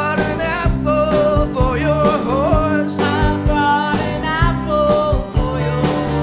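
A live band playing a country-rock song, with a man singing over guitars and a steady beat.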